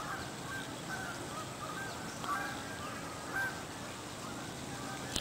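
Short animal calls repeated about every half second to second, each a brief pitched note, over faint outdoor background noise.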